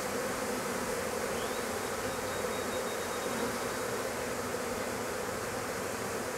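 Steady, even hum of a freshly hived swarm of thousands of honeybees crowding over the open top bars of a Langstroth hive, calm rather than agitated.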